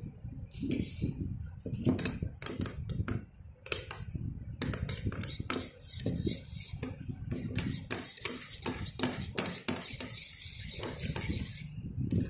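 Metal spoon stirring a watery glue mixture in a stainless steel bowl, clinking and scraping against the bowl's sides and bottom many times a second.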